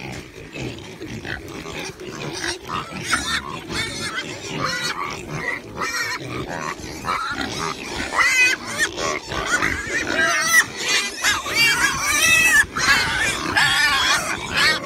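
A herd of pigs and piglets grunting and squealing all at once. The calls grow louder and busier in the second half as the animals crowd in close.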